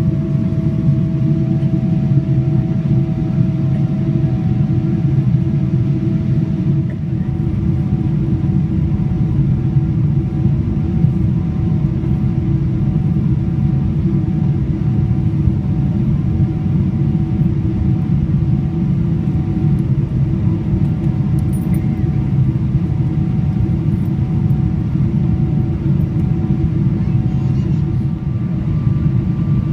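Steady cabin noise of a Boeing 777-300ER descending: a low rumble of airflow and GE90 engines, with a faint engine whine that shifts slightly higher about seven seconds in.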